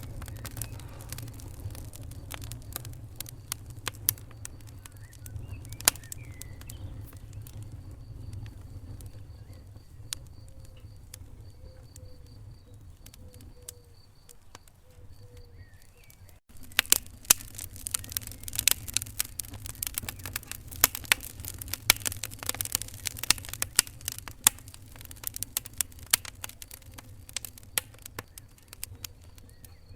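Wood fire in a fireplace crackling, with frequent sharp pops over a low steady rumble. A little past halfway the sound cuts out for an instant, and the crackling comes back denser and louder.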